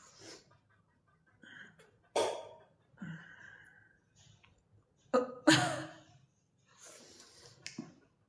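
A person's short, sudden breath and throat sounds, a handful of separate ones; the loudest comes about five and a half seconds in.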